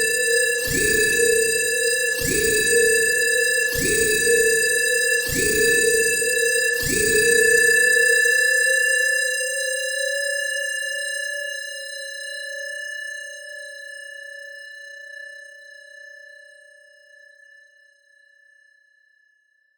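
Synthesized science-fiction alarm: a steady high electronic tone with a deep pulse beating under it about every one and a half seconds. The pulses stop about seven seconds in. The high tone and a lower tone hang on and slowly fade away to silence near the end.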